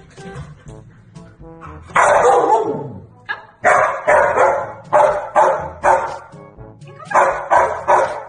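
Samoyed dog vocalizing: a long call falling in pitch about two seconds in, then two runs of short barks, about six and then about four, over background music.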